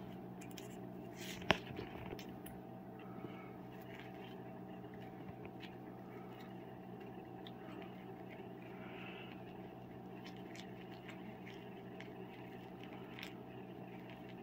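A cat biting and kicking a small fabric toy on a tile floor: faint scattered clicks and scrapes of claws and teeth, with one sharp click about a second and a half in, over a steady low household hum.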